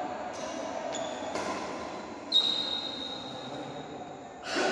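Indoor badminton rally with a steady hall background and a sharp high-pitched squeal that starts suddenly about two seconds in and holds one steady pitch for over a second. A louder burst follows near the end.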